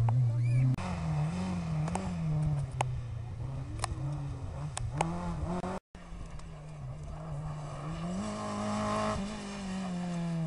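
Rally car engines at full throttle. The first car's engine rises and falls in pitch through quick gear changes. The sound cuts out for an instant about six seconds in, then a second rally car's engine climbs in pitch as it approaches and drops again as it passes.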